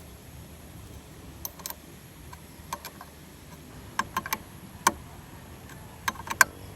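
Small sharp metallic clicks and taps of bolts and hand tools being handled, coming in a few quick clusters, the loudest near the end.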